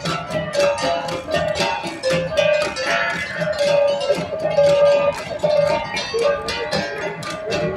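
Cordillera gong ensemble (gangsa) playing, the flat bronze gongs struck in a steady, rapid, interlocking rhythm with a bright metallic ring.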